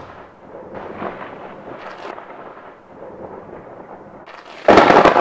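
A low rumbling background with faint crackle, then about four and a half seconds in a sudden loud crash-like blast that rings on with a rumbling tail.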